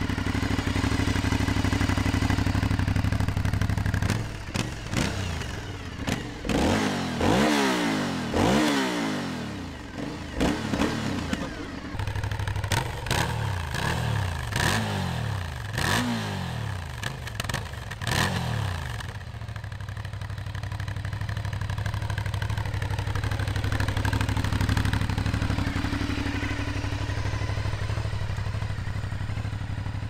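Aprilia Shiver 900's V-twin engine idling at a standstill, then revved in two runs of quick throttle blips, each jumping up in pitch and falling back, before it settles to a steady idle again.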